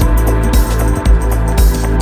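Electronic background music with a steady drum beat.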